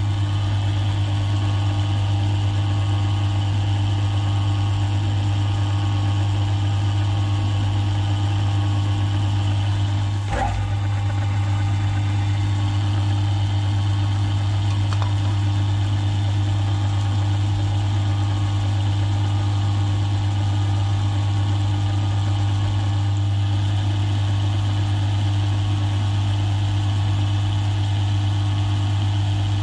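Milling machine running steadily with a strong low motor hum while a 3/16-inch drill bit in its spindle drills into a metal piston. A brief knock comes about ten seconds in.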